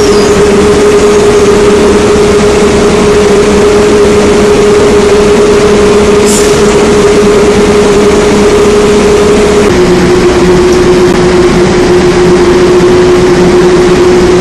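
Drilling rig floor machinery running loud and steady, a dense mechanical drone with a constant whine that drops slightly in pitch about ten seconds in.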